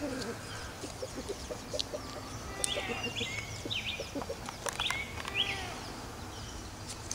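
Chickens clucking in short, repeated low notes, with a run of quick higher-pitched chirps in the middle.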